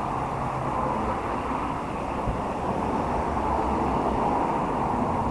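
Steady noise of road traffic, with no single vehicle standing out.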